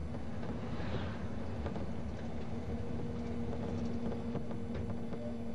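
Vehicle engine and tyre noise heard from inside a moving vehicle: a steady low rumble with a constant hum, a second, higher hum joining about halfway through.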